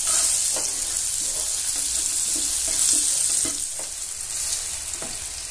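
Cubes of eggplant sizzling as they fry in mustard oil in a nonstick pan, with a spatula scraping and tapping against the pan several times as the pieces are turned.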